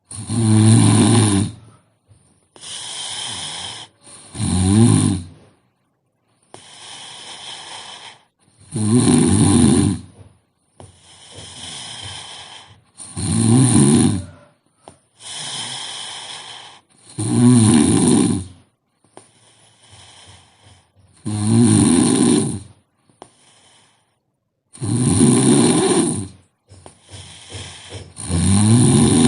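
A sleeping person snoring: a loud snore about every four seconds, about eight in all, with a quieter breath between each.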